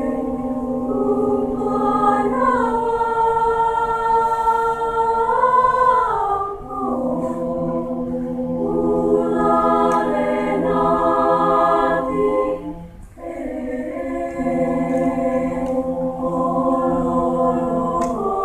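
Student choir singing in sustained, held chords, with the voices moving together to new pitches and a brief breath pause about two-thirds through.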